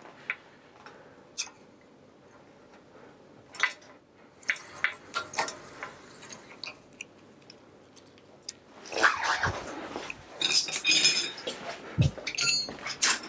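Metal hand tools and bicycle parts clinking and knocking during work on a mountain bike's crank area: scattered light clicks at first, then a busier run of metallic clanks and rattles about nine seconds in.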